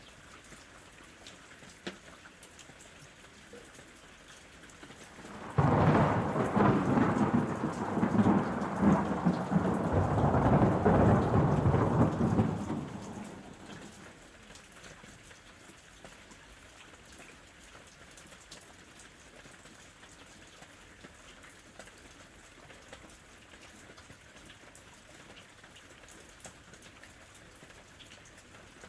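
Steady rain with a thunderclap that breaks suddenly about five seconds in, rumbles loudly for several seconds and fades away, leaving the rain alone.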